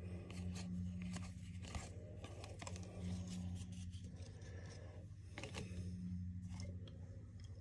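Hockey trading cards and their packaging being handled: scattered soft rustles and small clicks, over a steady low hum.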